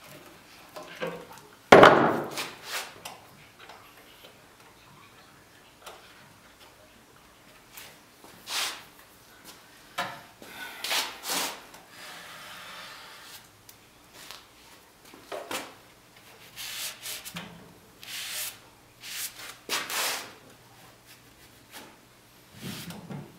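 One sharp wooden knock about two seconds in, then scattered short rubbing strokes as a cloth wipes glue squeeze-out along a freshly clamped wooden joint.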